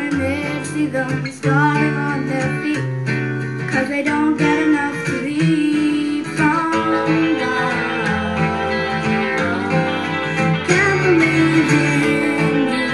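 Background music led by plucked and strummed guitar, with a changing bass line.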